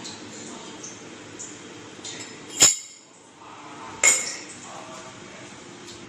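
Two sharp metallic clinks about a second and a half apart, the first ringing briefly: a stainless-steel sev press being handled and set down on the counter.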